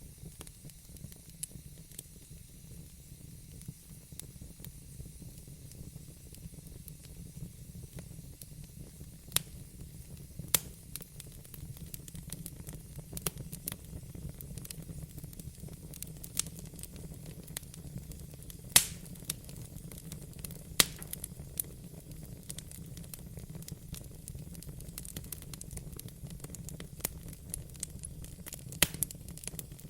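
Campfire crackling, with scattered sharp pops (the loudest about 19 s in) over a steady low rumble.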